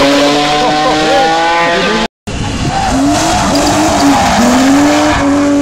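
Rally car engine revving hard with tyres squealing as it slides through a tarmac corner. The sound drops out for a moment about two seconds in, then another rally car's engine is held at high revs.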